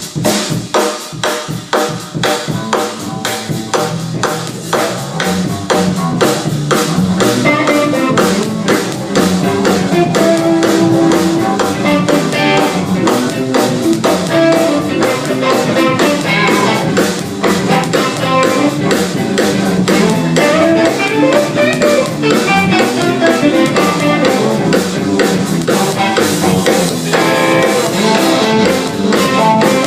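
A band jamming: a drum kit keeps a beat, and a few seconds in guitar and other pitched instruments join and the music grows louder.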